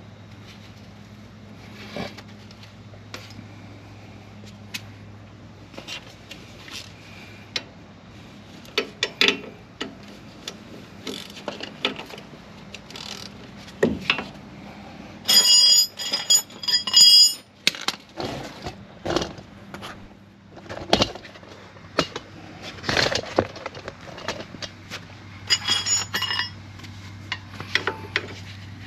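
Hand tools clinking and knocking against the metal parts of a pickup truck's front suspension: scattered sharp clinks, with a loud bout of rapid ringing metallic rattling about halfway through and a shorter one near the end. A steady low hum runs underneath and drops out in the middle.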